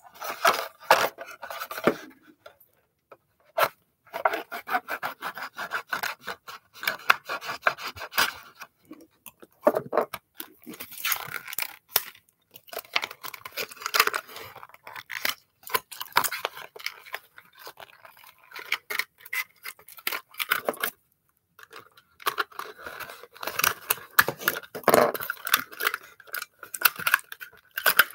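Hot Wheels blister package being torn open by hand: the stiff plastic blister crackles and the cardboard card tears in irregular bursts, with a few short pauses.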